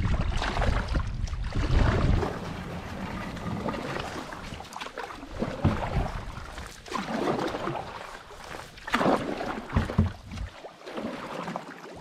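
Canoe paddles stroking through the water, a run of irregular swishes and splashes with a few louder strokes. A heavy low rumble on the microphone for the first two seconds.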